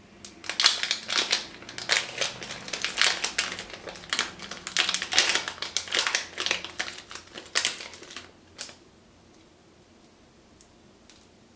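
Small clear plastic parts bag crinkling and crackling as it is handled and opened, for about eight seconds, then dying away to a few faint ticks.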